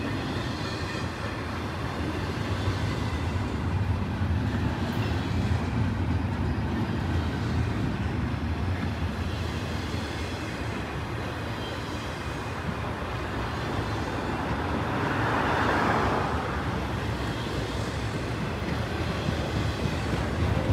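Intermodal freight train's loaded double-stack well cars rolling past: a steady noise of steel wheels on rail. A brief swell of higher-pitched noise rises and fades about fifteen seconds in.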